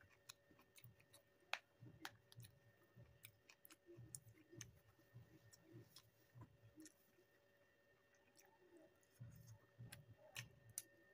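A person eating, quietly chewing with soft irregular mouth sounds and scattered small sharp clicks.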